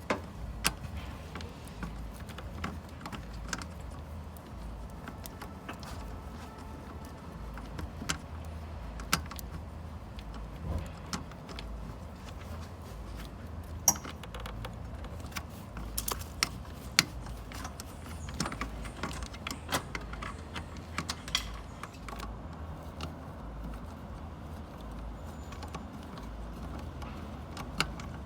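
Scattered metallic clicks and clinks of hand tools working on air-conditioning line fittings as the liquid line and low-side pipe are disconnected, over a low steady hum.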